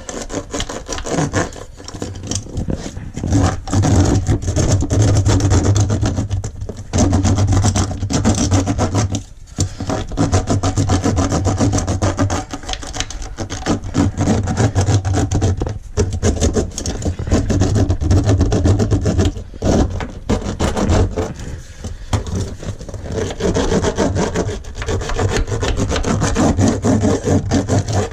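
Hand roller worked back and forth over foil-backed bitumen sound-deadening mat, pressing it down onto the floor panel. It makes a loud, continuous scraping rub in long strokes with short breaks between them.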